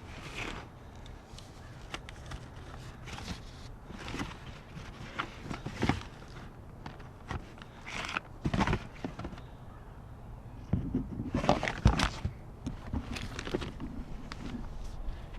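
Irregular knocks, clatter and scuffs, the loudest cluster about three-quarters of the way through.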